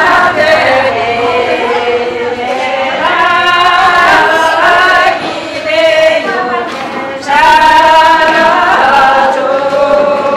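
A group of voices, mostly women's, singing a Tibetan circle-dance song together without accompaniment, in long held notes, with a short break for breath about seven seconds in.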